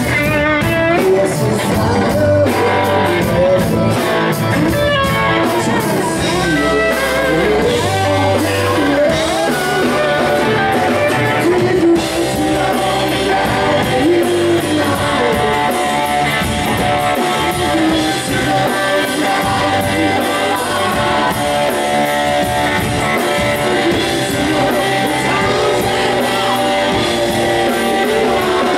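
Live rock band playing: a strummed 12-string acoustic guitar and drums under a sung lead vocal.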